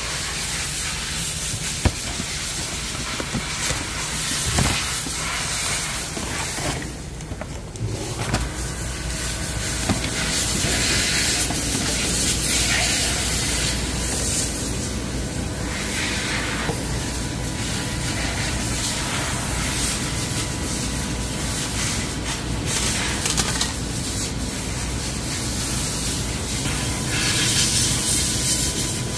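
Steady hissing, broken off briefly about seven seconds in.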